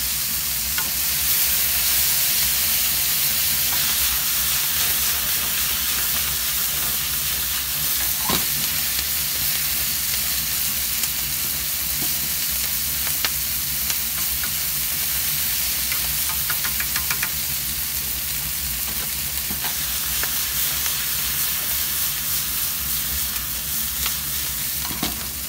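Offal, green onion and asparagus sizzling steadily in a nonstick frying pan over a gas flame, stirred with a wooden utensil, with a few light taps against the pan.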